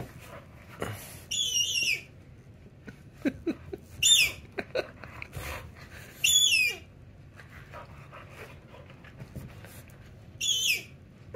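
Squeaky plush dog toy squeaking four times as a puppy chews and shakes it, each squeak a short high-pitched squeal, with soft rustling of the toy and cushion between them.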